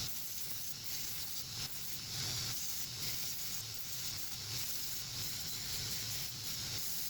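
Steady hiss, with a faint low rumble that swells and fades about once a second.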